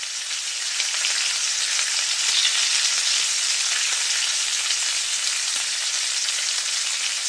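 Sooji halwa mixture of semolina, ghee and raisins sizzling and bubbling hard in a frying pan. It is a steady, dense hiss that builds over the first second and cuts off suddenly at the end.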